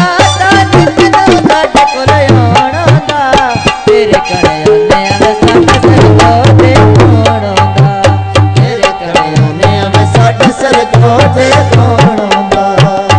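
Instrumental interlude of a Punjabi folk song: hand drums keep a fast, steady beat under a bending melody line.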